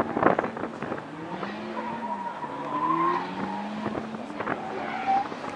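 Two drift cars in a tandem drift, engines revving up and down with tyres squealing, heard from a distance. Loud wind buffeting on the microphone in the first half-second.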